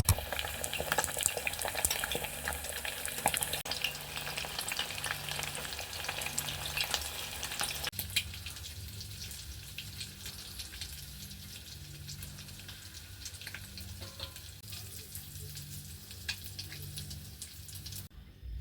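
Food frying in a pan, sizzling with dense crackling and popping, louder for the first several seconds and quieter after about eight seconds in.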